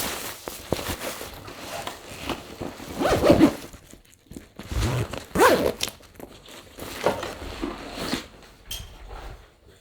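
Close handling noises: irregular rustling, crinkling and scraping with small clicks, louder twice, about three seconds in and again about five and a half seconds in.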